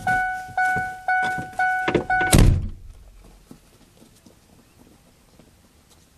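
Pickup truck's door-open warning chime dinging about twice a second, cut off by the door slamming shut a little over two seconds in; faint outdoor background after.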